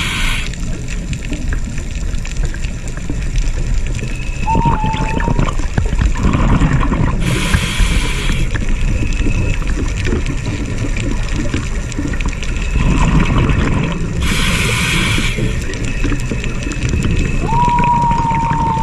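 Scuba diver breathing underwater through a regulator: two hissing breaths about seven seconds apart, with low rumbling bubbles in between. Twice a tone rises and levels off into a short steady whistle, the louder one near the end.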